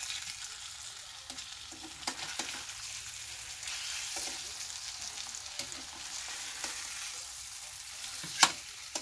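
Fish fillets sizzling steadily in oil in a frying pan as they are turned with metal tongs. A few sharp clicks of the tongs against the pan, the loudest near the end.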